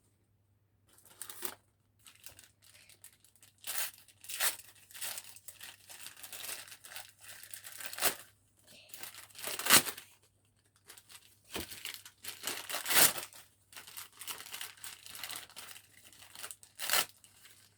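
Packaging being torn open and crumpled in irregular rips and rustles, with the loudest tears about ten and thirteen seconds in.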